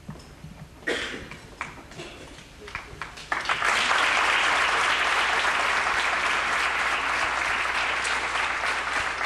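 A few sharp knocks, then about three and a half seconds in an audience breaks into loud, steady applause.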